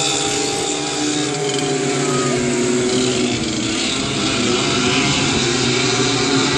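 A pack of dirt-track racing go-karts at full revs, several engine notes overlapping and shifting in pitch as the karts race round the oval.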